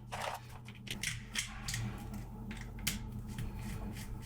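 Light clicks and scrapes of a small old plug connector being handled, over a steady low hum.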